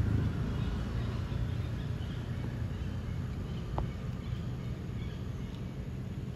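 Outdoor ambience: a steady low rumble with faint bird chirps, and a single short click about four seconds in.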